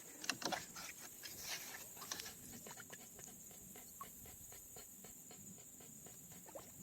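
Insects droning steadily in a high, thin band, with a few light clicks and knocks in the first couple of seconds.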